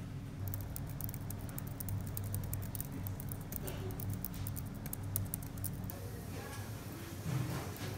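Fast typing on a laptop keyboard: a quick, uneven run of light key clicks that stops about six seconds in, over a low steady hum.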